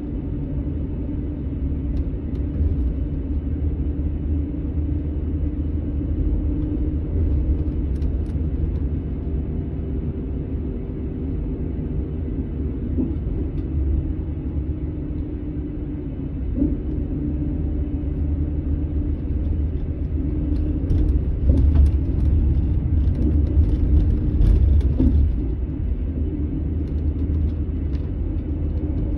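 Diesel engine of a Setra S 431 DT double-decker coach running with a steady low rumble, growing louder for a few seconds about two-thirds of the way in.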